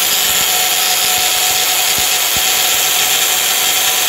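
Electric blender's small grinding jar running at full speed, grinding oil-fried nigella (kalo jira) seeds into powder. A loud, steady whirr.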